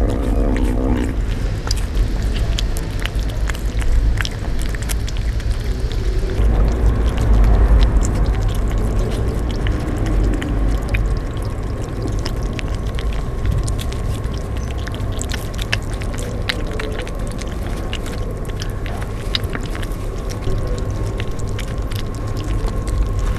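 Kittens eating wet cat food close up: many small wet smacking and chewing clicks from their mouths, over a low background rumble.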